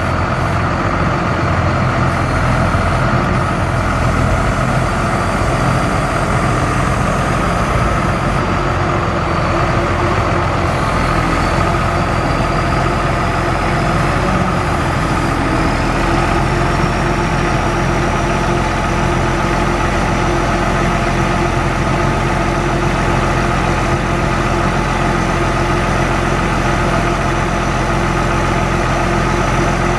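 Truck engine running steadily at idle while the hydraulic crane is worked, with a thin high whine that slowly climbs in pitch through the second half.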